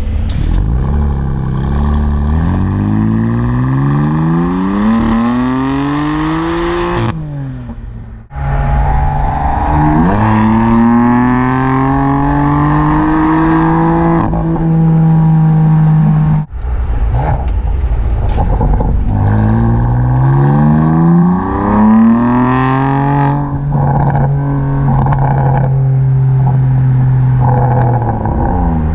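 BMW M4 F82 Competition's 3.0 L S55 twin-turbo straight-six exhaust under hard acceleration. The engine note climbs in pitch in several long pulls, broken twice by short drops, with stretches of steady running at speed in between.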